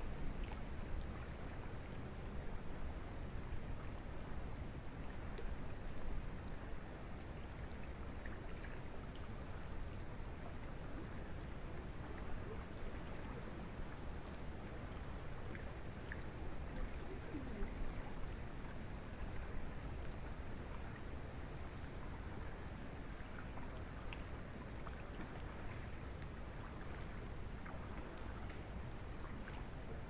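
Steady rain falling, an even hiss that carries on without a break.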